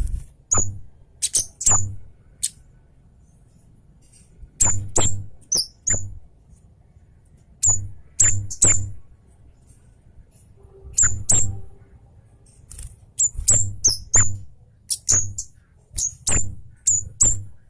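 Scarlet-headed flowerpecker giving sharp, very high-pitched chip calls in quick clusters of two to five, the clusters separated by short pauses of a second or two.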